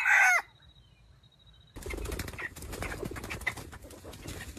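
Red junglefowl rooster gives one short, loud call that drops sharply in pitch. A little under two seconds in, a steady rustling, crackling noise starts and carries on.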